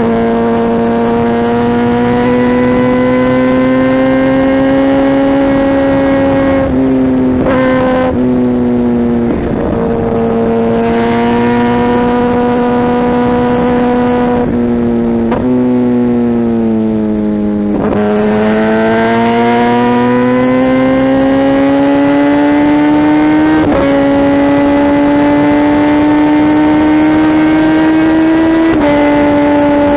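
Kawasaki ZX-10R inline-four engine through a Mivv aftermarket exhaust, running steadily under way. Its pitch rises and falls slowly, dips and climbs again about halfway through, and jumps suddenly a few times.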